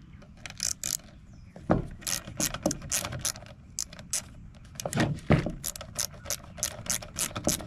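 Small hand ratchet from a Wera Tool Check Plus set clicking as it turns a hex-bit socket to loosen a bolt. The clicks come in quick runs, with a couple of duller knocks about two and five seconds in.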